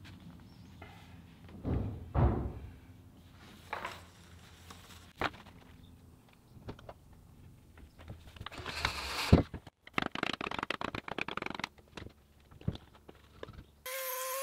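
Gray PVC electrical conduit being handled and fitted together: scattered plastic knocks and thunks, a scraping rush ending in a sharp knock about nine seconds in, then a quick run of small clicks. Music with steady held tones starts near the end.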